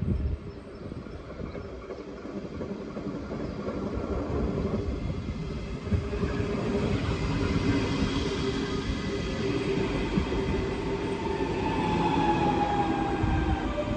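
German regional electric multiple unit of the DB class 424/425/426 family running, a steady rail rumble with whining tones from the drive that slide down in pitch over the last few seconds.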